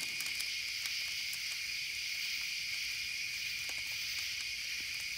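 Steady, high-pitched chorus of night insects, with a campfire crackling faintly now and then.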